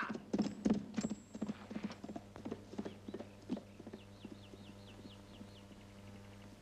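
Horse hooves clip-clopping in an irregular patter that fades away over the first few seconds, over a steady low hum. Midway a quick run of about eight short, high, falling chirps.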